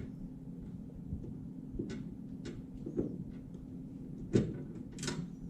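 A Phillips screwdriver working the oven's side mounting screws: a few scattered clicks and knocks, the sharpest about four seconds in, then a short scrape near the end, over a steady low hum.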